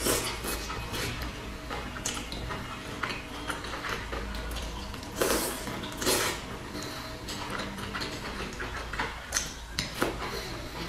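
Close-up eating sounds of boiled dumplings being bitten and chewed, with small clicks of chopsticks against a glass dipping bowl. Two louder wet bites stand out about five and six seconds in.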